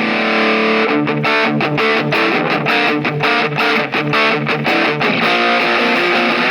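Electric guitar played through a mini guitar amplifier with its overdrive on, giving a distorted tone. A chord rings out, then fast rhythmic strumming starts about a second in.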